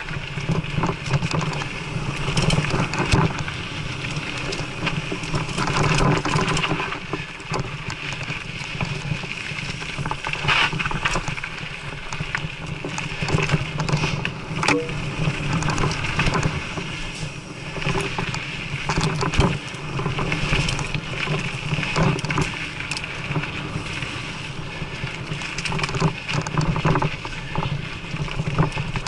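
Mountain bike riding along a dirt singletrack: steady wind rumble on the microphone with tyre noise on the dirt and frequent rattling clicks and knocks from the bike over bumps.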